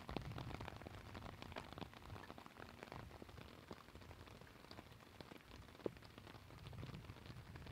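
Faint steady rain, with many separate drops ticking close by and one louder tick about six seconds in.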